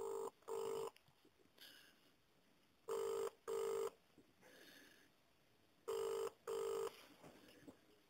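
British telephone ringing tone heard down the line while a call waits to be answered: three double rings, two short steady buzzes per ring, repeating about every three seconds.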